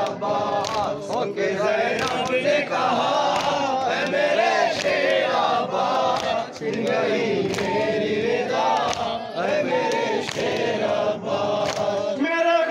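A group of men chanting a Shia noha lament in chorus, with sharp slaps of hands striking chests (matam) at a steady beat.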